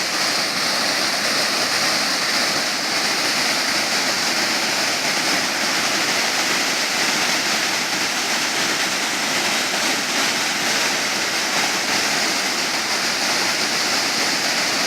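Waterfall pouring into a shallow pool, a steady rushing of water.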